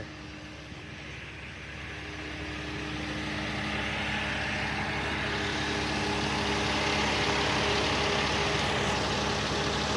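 Heavy rotator tow truck's diesel engine running steadily, with a hiss building over it as the sound grows gradually louder over several seconds.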